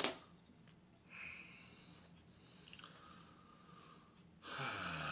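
Handling noises of thin wire and small metal prop parts: a sharp click at the start, then soft scraping and rustling. About four and a half seconds in comes a louder, breathy huff of exertion.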